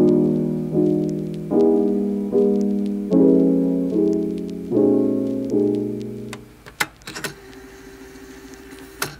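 Background piano music plays chords at an even pace, then stops about six seconds in. A few sharp clicks and faint rustling follow, with one more click near the end.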